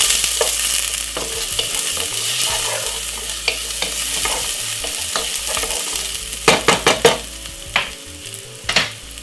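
Chopped garlic and white onion sizzling and being stirred in a hot frying pan. A cluster of sharp knocks comes about two thirds of the way in, with two more near the end.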